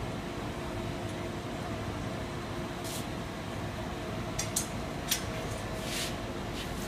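Iron pour into sand molds in a small foundry: a steady machine drone with a low hum runs throughout. Short sharp hisses come about three, four and a half, five and six seconds in.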